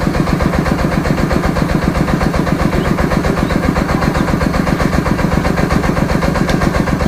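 A small engine idling steadily and loudly, with a rapid, even pulse.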